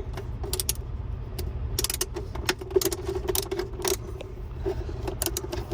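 Hand tools clicking and clinking as screws are worked out of a truck's plastic steering-column shroud, in short irregular clicks over a steady low hum.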